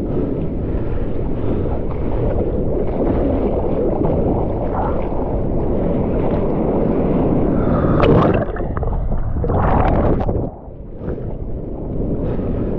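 Whitewater rushing and churning around a bodyboard riding prone through the foam, heard right at the waterline. The rush swells about eight seconds in, then drops off suddenly about ten and a half seconds in before picking up again.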